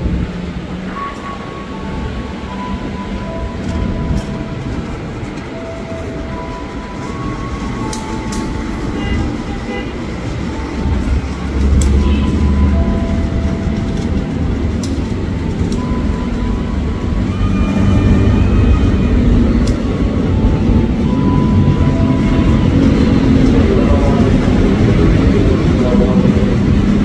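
KAI diesel-electric locomotive running through the station with a steady low rumble. It grows louder about halfway through as it comes nearer, with short steady high tones scattered over it.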